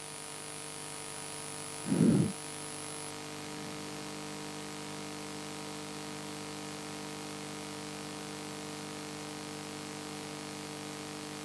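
Steady electrical mains hum with hiss from the lecture's recording chain, several even tones held throughout. A faint high steady tone stops about three seconds in, and about two seconds in there is one short, low sound lasting under half a second.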